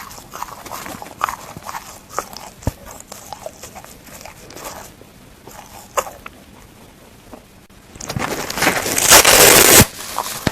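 Dry plastic sponge being bitten and chewed close to the microphone: scattered small crackles and clicks, then a loud, noisy burst lasting about a second and a half near the end.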